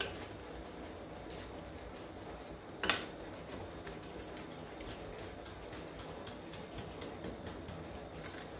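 Stainless-steel tongs clicking and tapping against a ceramic plate while turning a cutlet in breadcrumbs, with a louder knock about three seconds in and a run of light ticks near the end.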